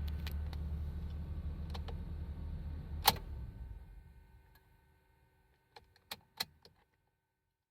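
Honda Odyssey (RB3) engine idling, heard from inside the car, then a sharp click about three seconds in, after which the engine runs down to a stop. Three or four light clicks follow near the end.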